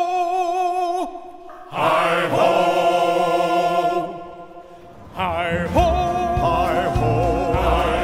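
Music with a choir singing long held notes with vibrato, breaking off briefly twice; a deep bass comes in near the end.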